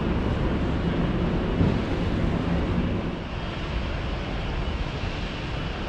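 Steady background rumble and hiss of a large exhibition hall, with faint distant voices.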